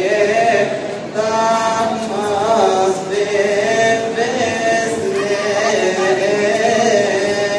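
Men's voices chanting a Coptic liturgical hymn together, in long melodic lines with held, wavering notes.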